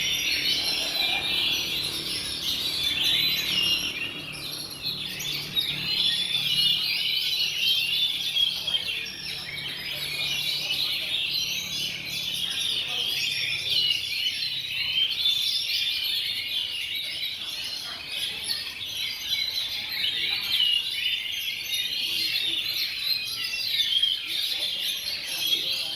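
Many oriental magpie-robins (kacer) singing at once, a dense, continuous chorus of rapid chirps and whistles.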